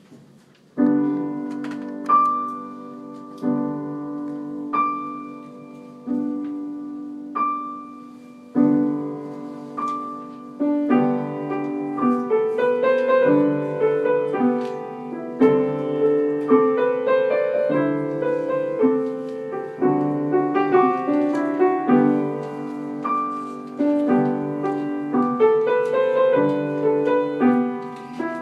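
Solo piano playing: slow, separate chords struck about every second and a half at first, then from about eight seconds in a fuller, busier passage with more notes.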